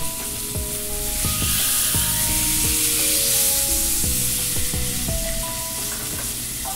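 Blackened mahi-mahi fillet sizzling in hot oil in a stainless steel skillet, with a spatula moving it in the pan. The sizzle grows louder a second or so in.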